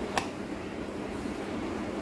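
One sharp click from a small screwdriver working on the screws of a plastic digital thermometer-hygrometer clock case, over a steady low hum.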